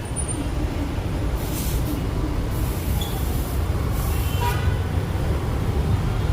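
Steady low motor-vehicle rumble with a few short hissing bursts, and a brief horn-like tone a little past four seconds in.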